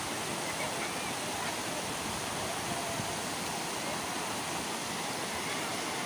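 Water rushing over the steps of a low stepped weir, a steady even wash of spilling water.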